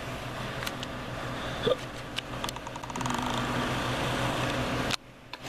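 Cardboard box being handled and its flaps opened, with rustling and a few light clicks over a steady low hum; the sound drops away abruptly about five seconds in.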